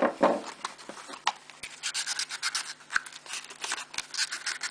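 A small cardboard knife box being opened by hand and its contents slid out: cardboard scraping and rubbing, then quick bursts of crinkly rustling from the paper wrapping.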